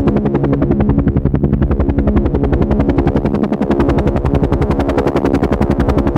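Helicopter in flight: the main rotor gives a rapid, even blade beat over a steady engine drone.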